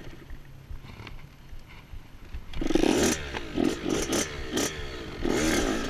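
Small dirt bike engine being ridden, faint for the first couple of seconds, then louder from about halfway, its pitch sweeping up and down with the throttle.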